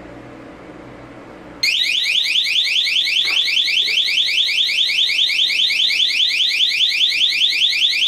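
Skylink SK-200 home alarm siren going off about two seconds in: a loud, high-pitched electronic warble of several rapidly repeating rising sweeps a second. It is triggered by a door sensor pulled away from its magnet while the system is armed in home mode.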